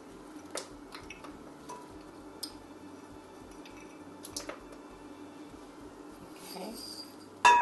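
Faint soft taps and small knocks as cubes of butter are dropped from a small dish into a glass bowl of flour. Right at the end a sudden loud clatter of utensils and dishes.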